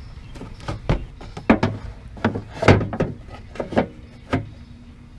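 About a dozen irregular knocks and clunks as a battery tray is set into a pickup's engine bay and shifted into position against the fender, the loudest near the middle.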